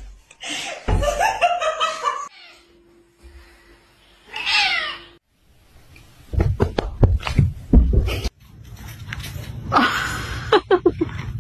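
Cats meowing in several short bursts with abrupt breaks between them, one call falling in pitch, along with a person laughing.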